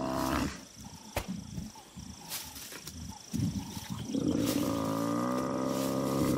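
African buffalo bellowing in distress as lions pull it down. One long call ends about half a second in, shorter broken sounds follow, and a second long drawn-out bellow starts about four seconds in.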